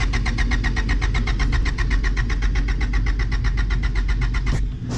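Car engine running with a fast, even pulsing over a low rumble, cutting off abruptly near the end.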